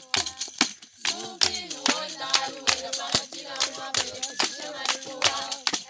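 Music: a steady beat of sharp shaker-like percussion strikes, with singing coming in about a second in.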